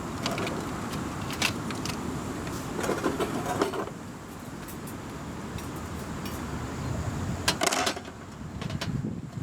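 Light metallic clinks and rattles among handling noise, over a steady low rumble.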